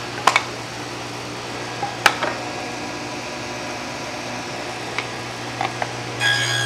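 SawStop table saw with a rip blade running freely with a steady hum, while the wooden boards and push block knock against the saw table a few times. Near the end the blade bites into a board and cuts a shallow groove, and the sound rises to a louder whine.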